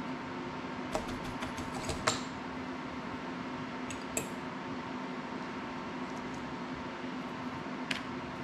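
Small clicks and taps of tools and parts being handled on a work table: a quick run of them about a second in, then single clicks around four and eight seconds. Under them, a steady low hum.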